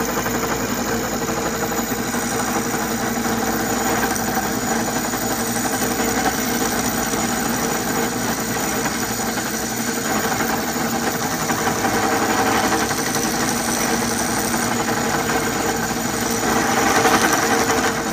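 Craftsman Atlas metal lathe running and taking a light cut in an aluminium tube, a steady machine hum with chatter, which the owner puts down to the drive pulleys being loose on the spindle shaft. It grows briefly louder near the end.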